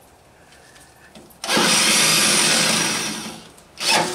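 Power drill running for about two seconds, then a short second burst near the end, drilling through the head of a pop rivet to free the fuel regulator bracket.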